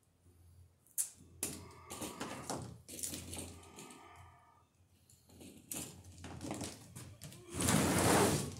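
Yellow nonmetallic electrical cable being cut and handled: a sharp snip about a second in, then rustling and clicking of cable and hand tools, with a louder rough scraping rush near the end.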